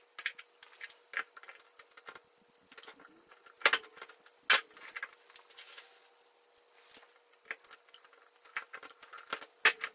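Hand pop-rivet tool setting rivets that hold a new IEC power inlet in an ARP Quadra's back panel: irregular small metallic clicks as the handles are worked, with a few much sharper snaps among them.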